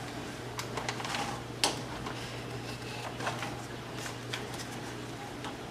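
Scattered light clicks and knocks of kitchen items being handled, the sharpest about a second and a half in, over a steady low hum.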